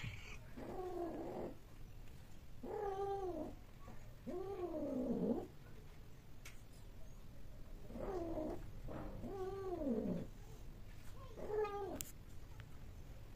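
Cats mating, one giving long, wavering yowls about six times, each call rising and then falling in pitch, with short gaps between them.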